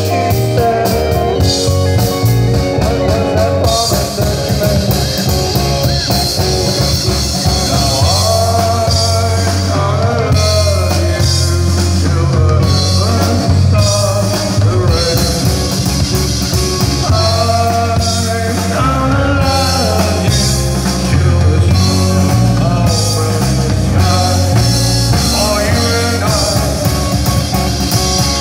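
Live rock band playing: a male lead vocal over keyboard, electric guitar and drum kit, with a bass line stepping from note to note.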